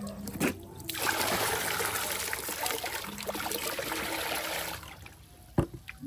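Water poured from a plastic basin into a plastic bucket, splashing steadily for about four seconds before the pour stops. A sharp knock follows near the end.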